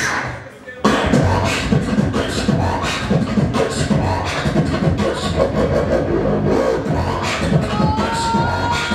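Beatboxing into a handheld microphone cupped over the mouth: fast drum-like kick, snare and hi-hat sounds made with the voice. The sound drops away briefly just after the start and cuts back in sharply, and near the end a held pitched tone runs over the beat.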